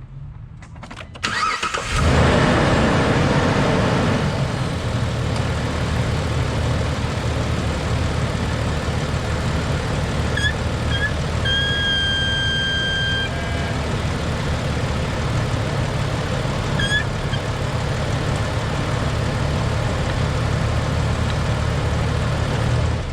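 Jeep Liberty engine started and then idling. About ten seconds in, a couple of short chirps, then a steady high whistle for nearly two seconds, and one more chirp a few seconds later. This is a vacuum whistle at the power brake booster that the owner suspects comes from a leaking check valve or its grommet.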